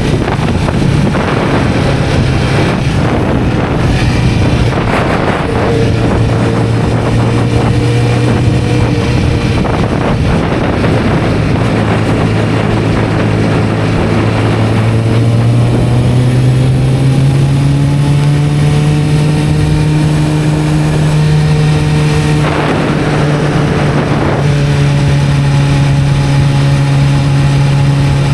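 1991 Kawasaki ZZR-400's inline-four engine running under way, its note dropping in the first few seconds, then climbing steadily through the middle as the bike accelerates and holding steady after, with wind rushing past throughout.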